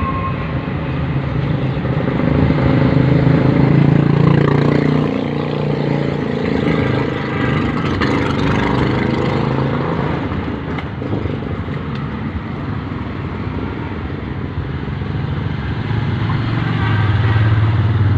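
A motor vehicle's engine running with steady traffic noise, its low hum swelling a few seconds in and again near the end.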